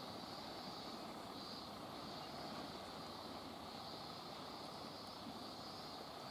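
Faint steady outdoor background noise: a low even rumble with a high hiss that swells and fades slowly.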